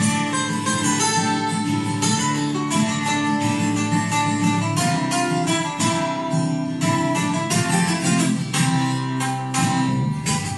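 Background music led by acoustic guitar, strummed and plucked at a steady pace.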